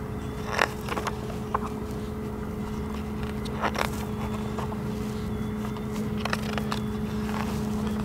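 Pages of a large glossy book being turned by hand: a few short papery flicks and rustles over a steady low hum.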